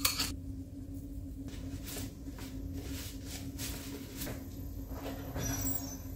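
Hands tossing dry bread cubes on a metal baking tray: soft, irregular rustling and light scraping over a steady low hum.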